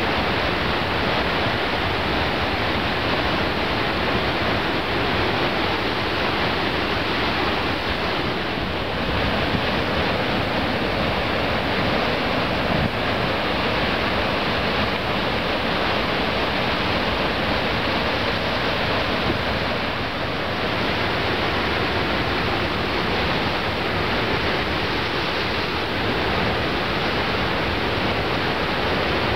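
Storm surf breaking along the shore: a steady, unbroken rush of white water, with no single wave crash standing out.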